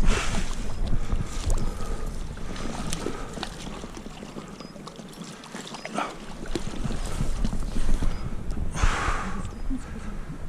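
Wind buffeting the microphone outdoors, a rumbling noise that eases for a couple of seconds mid-way and returns, with scattered small clicks and knocks of handling and a short hiss near the end.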